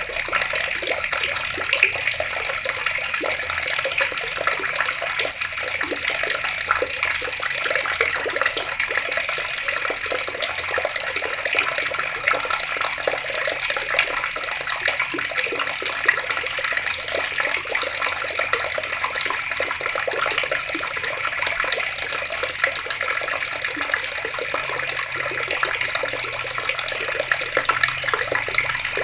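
Water pouring steadily from an outdoor tap and splashing, a constant rushing flow with no change.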